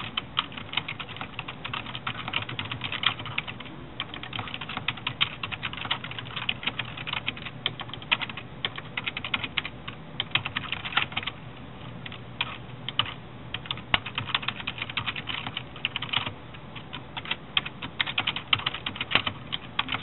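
Fast typing on a computer keyboard: rapid runs of keystroke clicks broken by short pauses, over a low steady hum.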